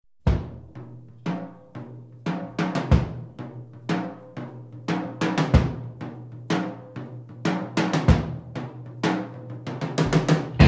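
Solo rock drum kit opening a song with a slow beat: deep kick-drum hits about every two and a half seconds and snare or tom hits between them, over a steady low tone. A quick drum fill comes near the end.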